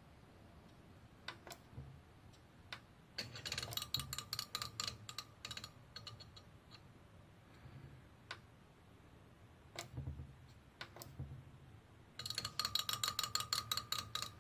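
Computer case fan ticking rapidly in two bursts as its blades strike a loose wire, with a few single clicks between. The builder calls it weird fan noise.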